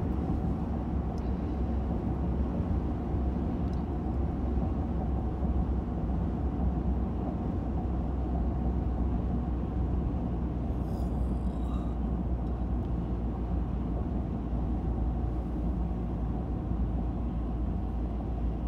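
Steady low rumble of road and engine noise inside a moving car's cabin on a highway.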